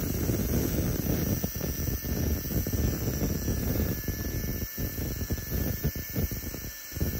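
An abrasive cut-off wheel grinding through a stainless steel quarter-20 bolt held in a vise: a steady grinding with a faint thin whine, easing off briefly twice in the second half as the wheel lets up on the cut.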